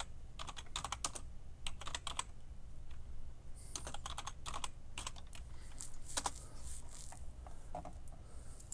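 Typing on a computer keyboard: irregular keystroke clicks in short runs.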